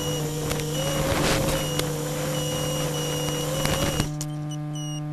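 FPV quadcopter's motor whine heard over a crackling analog video link, under a steady electrical hum with clicks and short high beeps. About four seconds in the motor sound and crackle cut off suddenly, leaving only a steady buzz.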